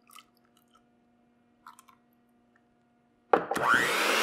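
Electric hand mixer with a whisk attachment switched on near the end, its motor spinning up with a quick rising whine and settling into a steady run as it whisks the liquid egg-and-gelatin mixture. Before it there are only a few faint small sounds.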